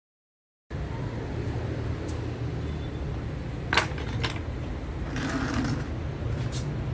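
Steady low outdoor rumble of city background noise, starting a moment in, with two sharp clicks of wooden pieces handled on a tabletop about four seconds in and a brief rustle soon after.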